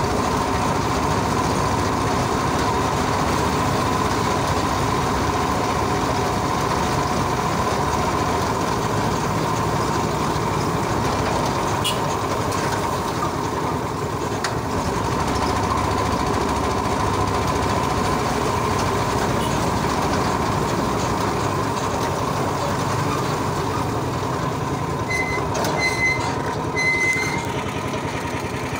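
Steady running noise of a passenger tricycle on the move: a constant hum with a steady whine and road rumble. Near the end a horn gives three short high beeps.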